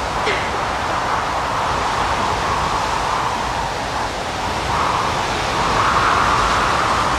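Strong wind gusting over open moorland, a steady rushing noise that swells louder about five seconds in and again near the end.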